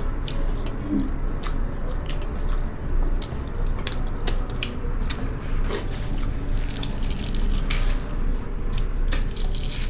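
Close-miked eating sounds: irregular crunchy bites and wet chewing of fried stinky tofu, many short clicks and crunches at uneven intervals.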